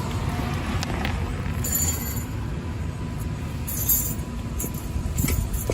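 A few light metallic clinks and clicks, about 2, 4 and 5 seconds in, from brake pad hardware being handled, over a steady low background rumble.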